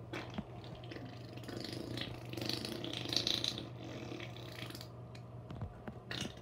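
A person making rattly, raspy mouth noises, loudest in the middle, over a steady low hum.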